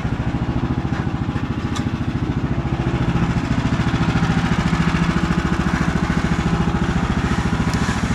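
Woodland Mills HM130 Max sawmill's gas engine running steadily at idle with an even, pulsing beat, with a few faint clicks.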